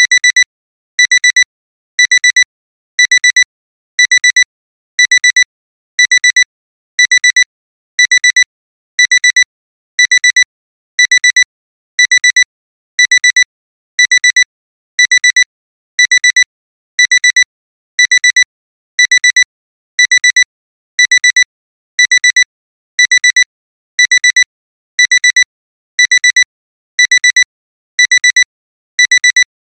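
Alarm-clock alarm beeping nonstop in high-pitched double beeps, about one pair a second: a countdown timer signalling that its time is up.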